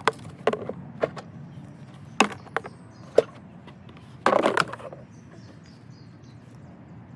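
A string of sharp knocks and clacks, about six in the first three seconds, then a short rough scrape about four seconds in.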